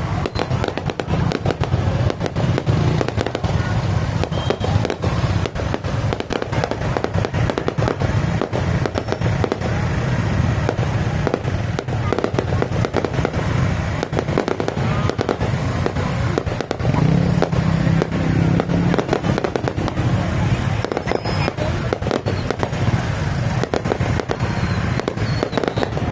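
Fireworks display: a dense, continuous barrage of bangs and crackles with no real let-up.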